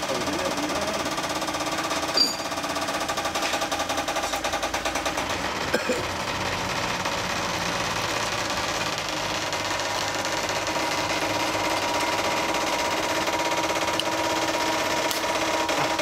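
A machine running steadily, with a fast, even rattle over a steady hum.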